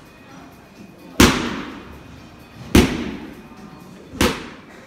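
Boxing gloves striking a large round punch shield held by a pad holder: three hard single punches about a second and a half apart, each a loud smack with a short echo.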